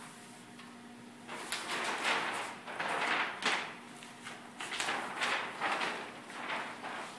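Large sheets of heavy cardstock rustling and sliding as they are handled on a flat press table, in several irregular swells starting about a second in, over a faint steady hum.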